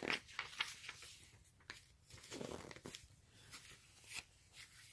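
Faint rustling and soft clicks of paper as a picture book's page is handled and turned, with a longer rustle about halfway through.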